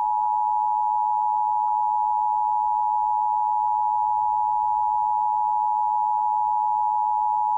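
Emergency Alert System attention signal: a steady two-note electronic tone (853 and 960 Hz sounded together), held at a constant level with no breaks. It is the alarm tone that announces an emergency broadcast message is about to be read.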